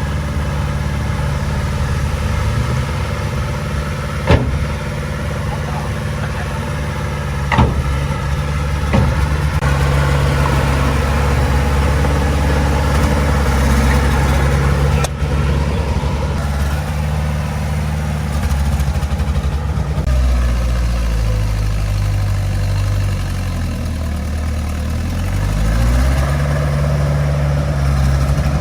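Small bulldozer's diesel engine running steadily, with a few sharp metal clanks in the first ten seconds. After about twenty seconds the engine note drops, then climbs back up a few seconds later as it works under load.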